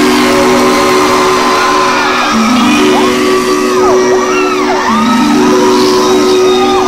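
Live band music, loud: held keyboard chords that shift about every two and a half seconds, with gliding whoops that rise and fall over them from about three seconds in.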